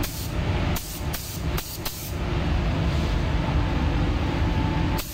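Gravity-feed paint spray gun hissing in several short bursts over the first two seconds, laying a light mist coat of paint onto a car door, over a steady low rumble.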